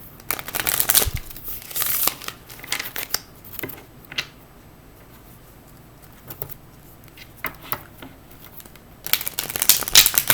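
A Rider-Waite tarot deck being handled and shuffled: papery rustling in irregular bursts with a quieter pause in the middle, then a dense run of shuffling near the end.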